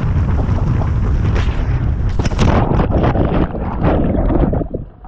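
Wind buffeting the microphone and water spray rushing and slapping as a towed inflatable tube skims fast over a lake. Near the end the camera goes into the water and the sound drops suddenly to a duller, quieter wash.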